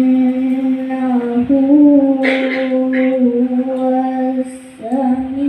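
A boy reciting the Qur'an in the melodic tilawah style. He holds one long drawn-out note for about four seconds, stepping slightly up partway through. Near the end he takes a short breath and starts a new, rising phrase.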